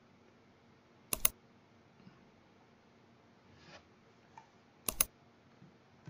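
Two computer mouse clicks, each a quick press-and-release double tick, about a second in and again about five seconds in, with faint room tone between them.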